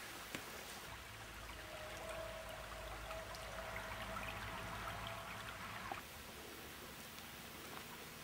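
Shallow stream trickling over stones beside a wooden footbridge, a soft steady water sound that is clearest through the middle and drops away about six seconds in.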